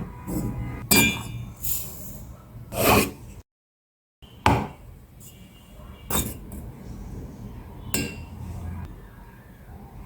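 Kitchen utensils and dishes clinking and knocking: several separate clinks, some with a short ring, with a moment of dead silence a little after three seconds in.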